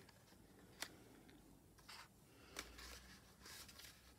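Near silence, with a few faint taps and light rustles of folded paper pieces being handled and pressed together.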